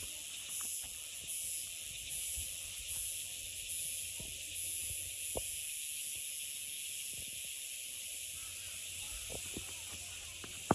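Steady, high-pitched insect chorus from the pine forest, a hiss-like drone with a faint pulsing shimmer on top. A few soft footsteps on grass sound underneath.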